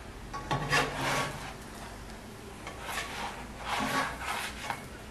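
Plastic spatula scraping and rubbing against a nonstick frying pan as it is worked under a cooking pita bread, in three short rasping bursts.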